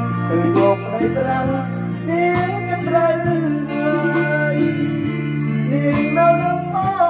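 A man singing a Khmer song into a handheld microphone over a karaoke backing track with a steady bass line.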